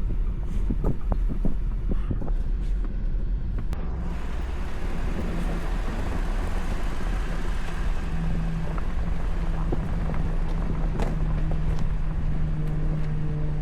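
Jeep Gladiator driving slowly over a rocky dirt trail: a steady low engine and road rumble with several knocks and rattles in the first few seconds, and an engine tone that grows stronger about eight seconds in.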